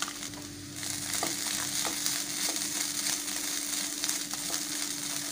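Boiled chicken sizzling in hot coconut oil with ginger-garlic paste and chilli while being stirred in a pan, the hiss getting stronger about a second in, with scattered small clicks of the stirring spoon. A steady low hum runs underneath.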